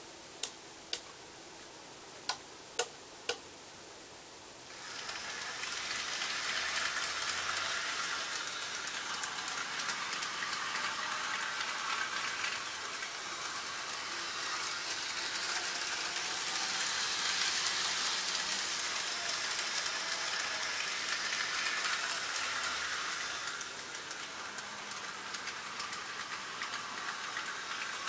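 Six sharp switching clicks in two quick groups of three, from the layout's electrical control gear. From about five seconds in, an N gauge model train runs on the track with a steady hissing whirr from its small motor and wheels on the rails, easing a little near the end.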